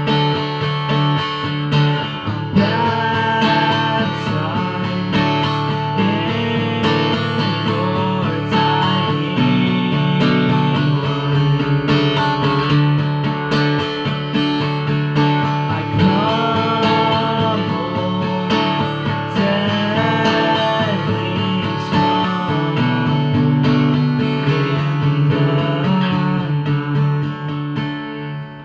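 Acoustic guitar played solo, a steady flow of plucked and strummed chords, getting quieter near the end.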